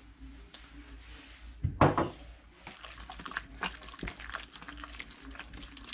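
A dog barks once about two seconds in. Light clinks of a spoon against a bowl follow as marinade ingredients are measured and mixed.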